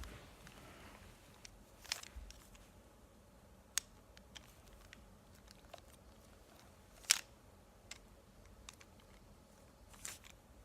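Small plastic 3x2 puzzle cube being twisted: a handful of short, faint plastic clicks spread out with pauses between them, the loudest about seven seconds in.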